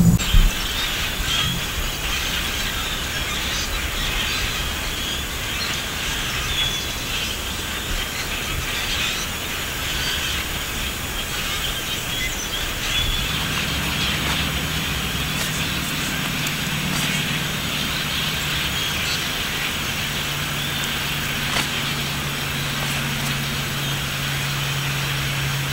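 Outdoor marsh background with a steady hiss, joined about halfway through by the low, steady drone of a distant engine.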